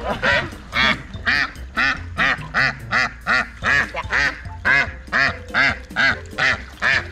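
Domestic duck quacking over and over in a steady rhythm, about two to three short quacks a second.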